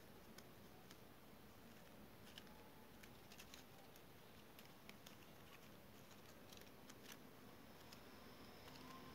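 Faint, scattered crinkles and ticks of stiff paper strips being handled and woven by hand, over quiet room tone.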